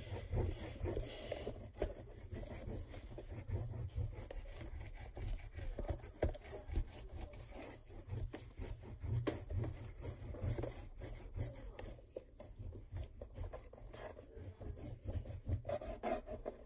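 Hands rubbing and scraping on the inside of a cardboard shoebox, with irregular small knocks and handling rumble.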